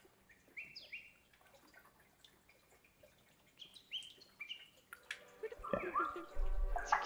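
Short, high chirps that sweep in pitch, coming in small clusters of two or three. From about five seconds in, clicks and busier sounds crowd in, with a low thump near the end.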